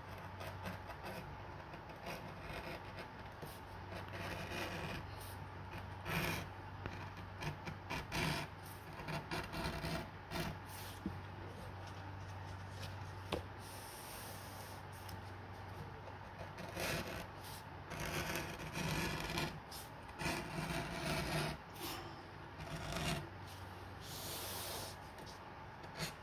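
Keen No. 3 edge beveler shaving the edge of a vegetable-tanned leather belt strap: a series of short, irregular scraping strokes as the blade pares a thin curl off the edge.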